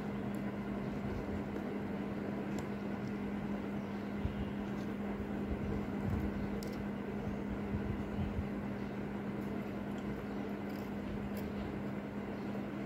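Steady low mechanical hum throughout, with a few faint, scattered small clicks from steel tweezers handling small metal parts of the watch movement.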